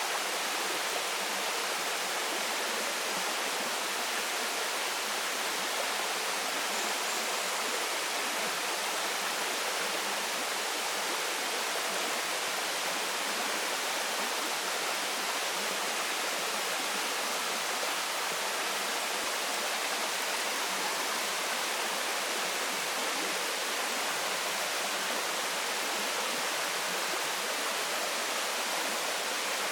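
Waterfall and stream water rushing, a steady, even hiss of falling and flowing water with no changes.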